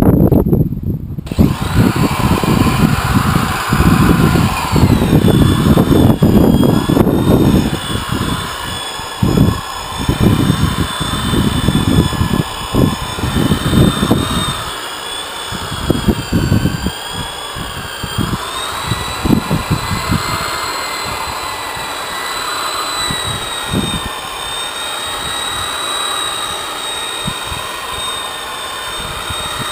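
Corded electric rotary polisher running with a foam pad buffing a boat's painted hull: a steady motor whine that wavers slightly in pitch as the pad is pressed and moved. A heavy, uneven low rumble runs through the first half and fades to lighter knocks later.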